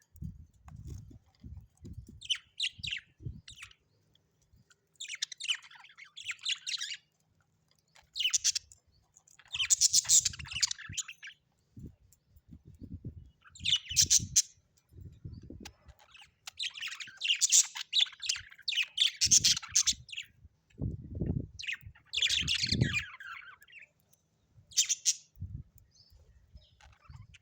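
Budgerigars chirping and chattering in short bursts every second or two, with low thuds in between.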